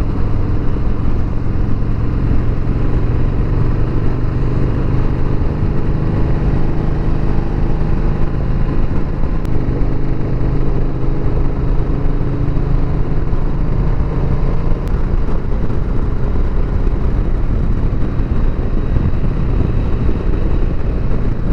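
2020 Harley-Davidson Sport Glide's Milwaukee-Eight 107 V-twin engine running steadily while the motorcycle is ridden.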